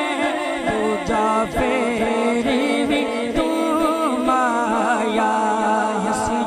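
A man singing a Punjabi naat, a devotional praise poem, into a microphone, in a long melismatic line whose pitch bends and wavers.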